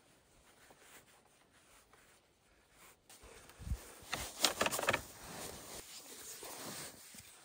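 Cord being pulled and knotted around peeled wooden poles: faint rubbing at first, then from about three seconds in a stretch of louder rustling and scraping with a few light knocks of wood.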